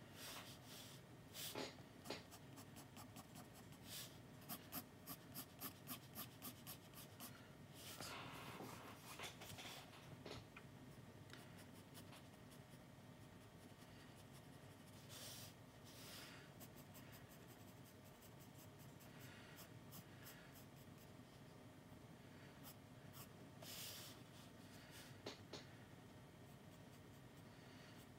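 Faint pencil strokes scratching on sketchbook paper: flurries of quick short strokes, with a few longer drawn strokes in between.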